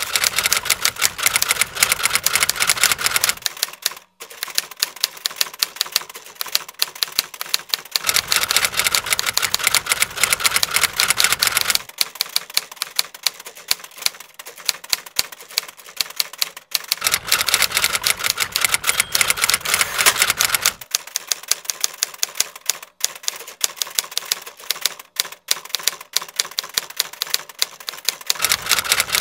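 Rapid, uneven mechanical clicking like fast typing, continuous throughout. A low background rumble drops in and out every few seconds.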